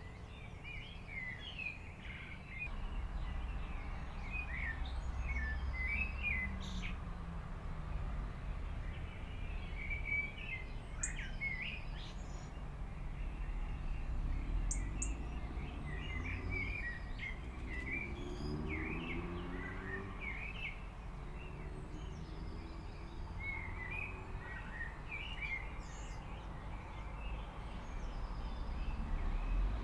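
Small birds chirping and twittering again and again over a steady low rumble, with a faint droning sound that slides in pitch partway through.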